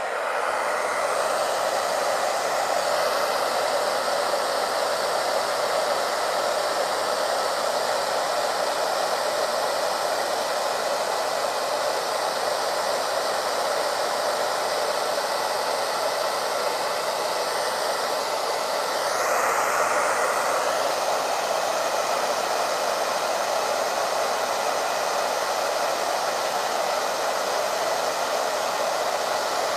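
Hair dryer switched on and blowing steadily, a constant rushing noise, briefly a little louder about two-thirds of the way through.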